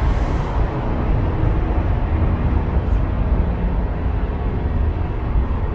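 Steady low rumble of machinery on a ferry's enclosed vehicle deck, running evenly without a break.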